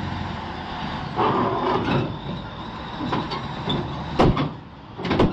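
Caterpillar crawler bulldozer's diesel engine working hard while its steel tracks clank and knock on a trailer deck, with two loud metallic bangs about four and five seconds in.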